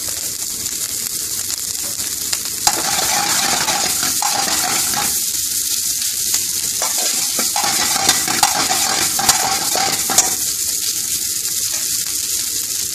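Fried rice with egg and peas sizzling in a hot oiled frying pan while being stirred with a metal spoon. The spoon scrapes through the rice and clinks sharply against the pan several times.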